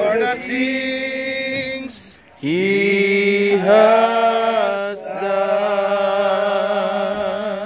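Male voice singing a worship song in long held notes, with a short break about two seconds in.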